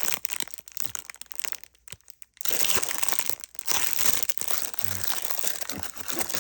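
Packaging of a newly unboxed air ratchet being handled: crinkling and rustling in irregular bursts, with a brief pause about two seconds in.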